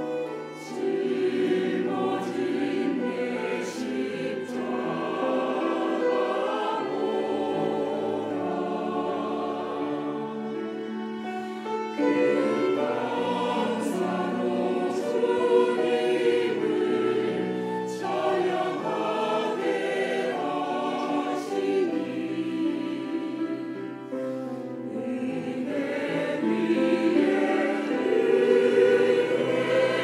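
Mixed church choir singing a sacred anthem in parts, with violins accompanying; the singing swells louder in places and grows strongest near the end.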